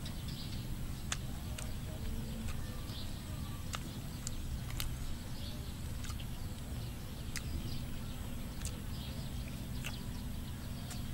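A person chewing and eating with the fingers: scattered sharp mouth clicks and lip smacks at irregular intervals, over a steady low rumble, with faint bird chirps.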